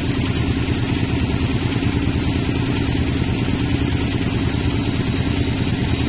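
Band sawmill running steadily, a low hum with a fast, even pulse, while the teak log is lined up on the carriage and the blade is not yet cutting.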